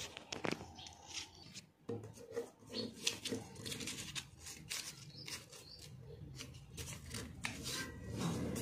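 Paper being handled and folded by hand: irregular rustling and crackling as the sheet is moved and creased.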